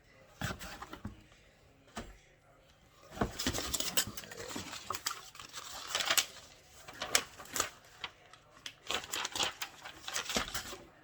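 Boxes of ammunition being handled and lifted out of a packing box: rustling with a run of irregular knocks and clatter.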